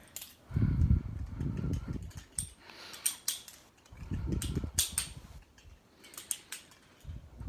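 Butterfly knife (balisong) being flipped: scattered sharp metallic clicks and taps of the handles and blade, with a few stretches of low rumble in between.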